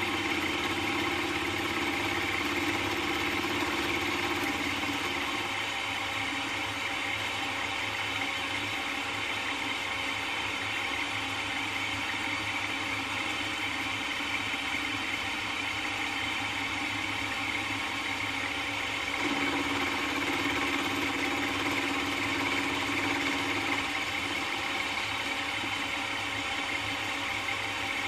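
Milling machine running steadily, its end mill cutting an aluminum block. A lower hum fades about five seconds in and comes back about nineteen seconds in.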